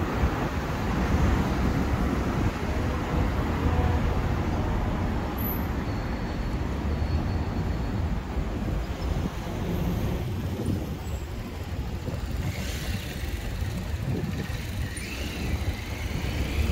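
Road traffic: cars passing, a steady low rumble with no break.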